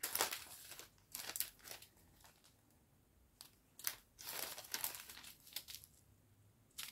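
Small plastic zip-lock bags of diamond painting drills crinkling as they are handled, in faint short rustles with pauses between them.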